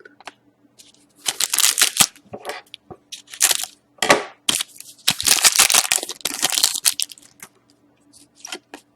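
Trading card pack wrapper crinkling and tearing in several short bursts, with a longer spell of crinkling about five seconds in, as a pack of hockey cards is opened.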